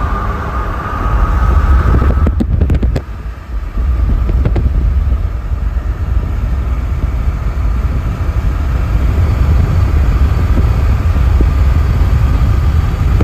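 Car on the road: a steady low rumble of road and engine noise, with a faint rising whine in the first couple of seconds and a few clicks about two and a half seconds in.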